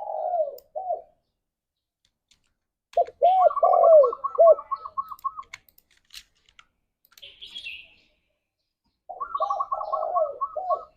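Spotted doves cooing: three phrases of deep, arched coos, one ending about a second in, one about three seconds in and one near the end. The later two carry a quicker run of higher notes over the coos. A faint short chirp comes between the phrases.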